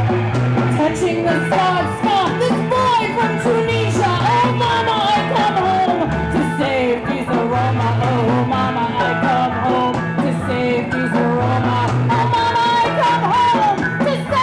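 Punk rock band playing live: electric guitar, bass and drums with cymbals crashing, and a woman singing into a microphone over a bass line that steps between a few low notes.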